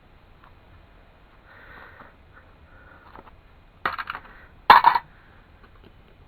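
Metal clicks and scrapes from handling a lead fishing-weight casting mould, about four seconds in, followed by one loud, sharp clink.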